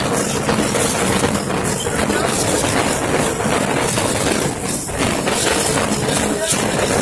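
Steady din of many people talking at once in a crowded room, with no single voice standing out.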